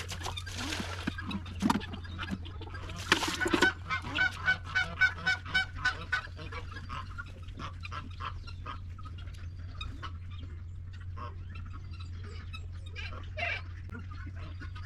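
Geese honking in a quick run of short calls, several a second, for a couple of seconds about four seconds in, with scattered quieter calls after, over a steady low hum.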